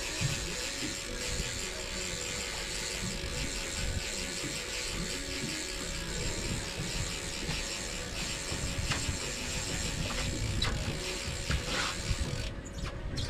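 Fishing reel being wound in steadily, its ratchet giving a fast, even ticking that stops near the end.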